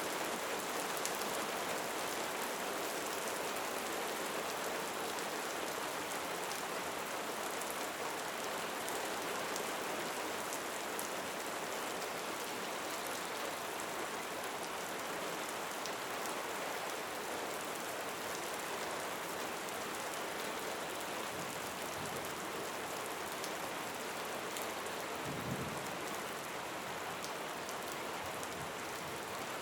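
Steady rain falling, a dense even hiss with the patter of individual drops. A brief low rumble comes through near the end.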